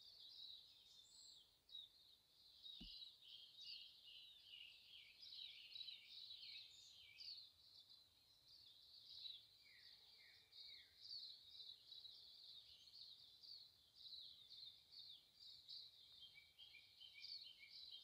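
Faint songbird chorus: several birds chirping and trilling without pause in high, quick, overlapping notes. A single brief low bump comes about three seconds in.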